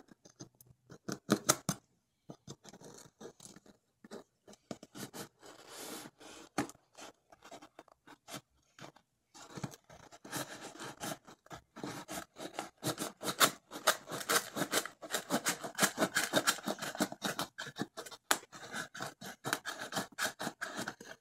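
Kitchen knife blade sawing and scraping through packing tape and the paper label on a cardboard box, in short quick strokes. The strokes are sparse at first, then come in a dense, rapid run from about ten seconds in.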